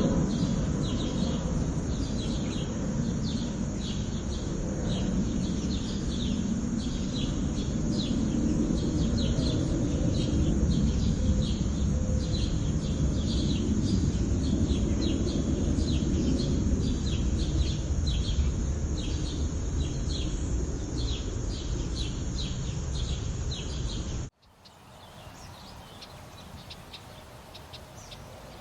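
A bird chirping over and over, short high notes about one to two a second, over a loud steady low rumbling noise. About 24 seconds in the sound cuts to a much quieter outdoor background with faint calls.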